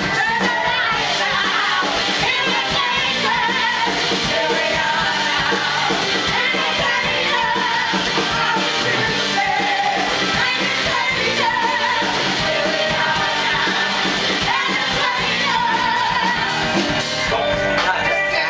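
Live musical number: voices singing over band accompaniment, steady and loud.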